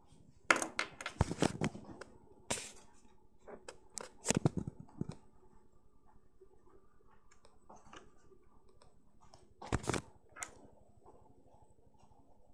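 Handling noise from a handheld phone camera: clusters of sharp clicks, knocks and rubbing. The clusters come just after the start, around four seconds in and near ten seconds, with quiet stretches between.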